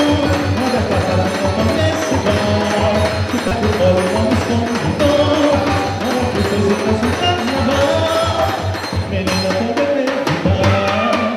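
Music with a steady drum beat and percussion under a melody; sharper percussion clicks join near the end.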